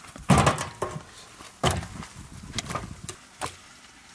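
A series of irregular knocks, like chopping on wood: a loud one about a third of a second in, then about five more, roughly a second apart.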